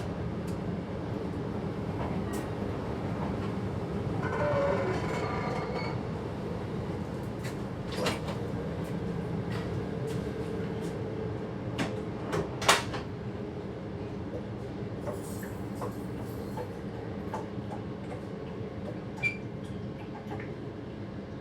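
Passenger train running on the track, heard from the driver's cab: a steady low rumble with scattered sharp clicks, a brief whine about four seconds in, and a louder click past the middle.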